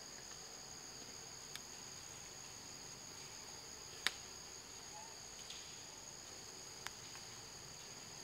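Steady, high-pitched drone of a chorus of forest insects, holding two even tones. A few sharp clicks stand out over it, the loudest about four seconds in.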